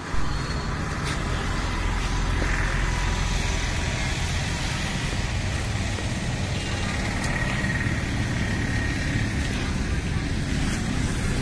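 Steady outdoor background noise with a low rumble of traffic.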